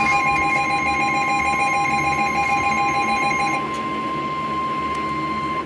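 Emergency Alert System attention signal: a loud, steady electronic alert tone. Two tones sound together until about three and a half seconds in, when one drops out, and the remaining single tone cuts off abruptly near the end. It marks the start of a new weather alert.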